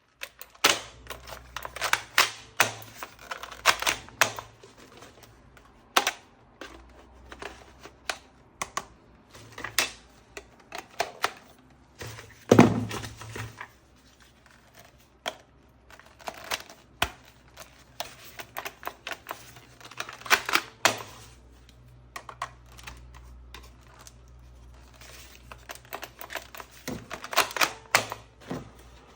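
Hard plastic parts of a toy gun clicking and clacking as they are handled, in irregular clusters of quick clicks with a few louder knocks, the loudest about twelve and a half seconds in.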